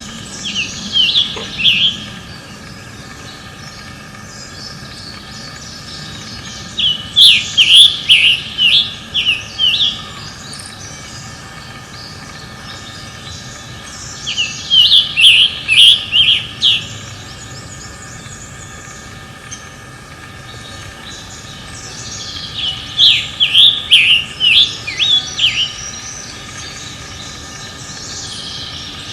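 A songbird singing in four bouts of rapid, sharp down-slurred notes, each bout lasting two to three seconds and coming about every seven to eight seconds, over a faint steady background hum.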